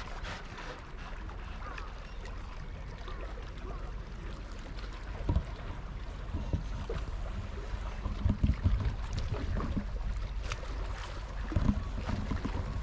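Wind buffeting the action camera's microphone: a steady low rumble with several stronger gusts, one about five seconds in and a cluster between eight and nine seconds and again near the end.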